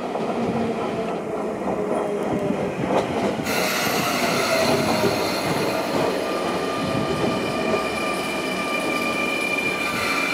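Sotetsu 9000 series electric train rolling slowly past as it pulls in to stop at the platform, its running gear rumbling. From about three and a half seconds in, a steady high squeal of wheels and brakes joins as it slows.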